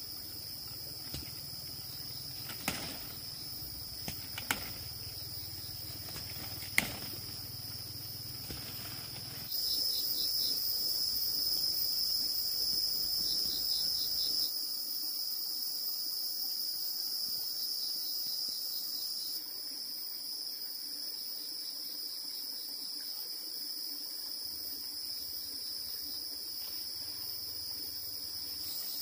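A steady, high-pitched chorus of insects, with a few sharp clicks or knocks in the first third. The chorus jumps louder about a third of the way in and drops back in two steps a few seconds apart.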